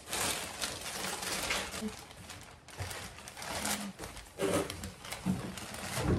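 Thin plastic shopping bags rustling and crinkling as groceries are handled and lifted out of them, densest in the first two seconds or so.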